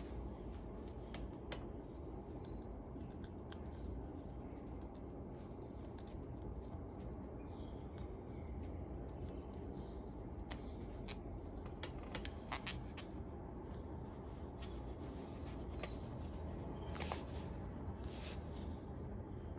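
Hand-stitching a leather boot: an awl pierces the leather and thread is drawn through, giving scattered small clicks and scrapes over a steady low background hum.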